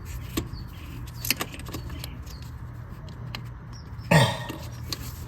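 Metal tools and parts clinking and rattling while a knock sensor is fitted in an engine's intake valley, over a steady low hum. A short, loud sound that drops in pitch comes about four seconds in.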